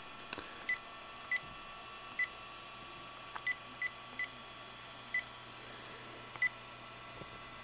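Garmin GPS 12CX handheld GPS giving short, high-pitched key beeps as its buttons are pressed to step through its screens and menus: eight beeps at uneven intervals, each confirming a keypress.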